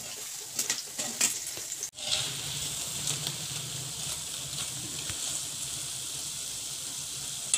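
Lentil fritters (dahi vadas) sizzling steadily as they deep-fry in oil on a low flame, with a few light clicks of a wire-mesh skimmer against the pan in the first two seconds as they are turned. The sizzle breaks off for an instant about two seconds in.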